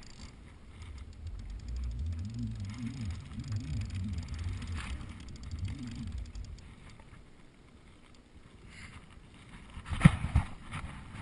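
Spinning reel cranked under load from a hooked large catfish, with fine rapid ticking from the reel and handling rumble. A sharp knock about ten seconds in.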